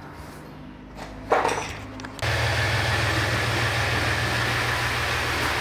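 A single loud knock, then a motor starts abruptly about two seconds in and runs steadily with a strong low hum and a wide hiss.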